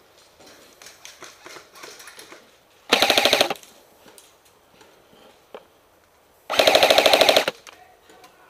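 Airsoft rifle firing two full-auto bursts, a short one about three seconds in and a longer one of about a second near the end, each a fast rattle of shots.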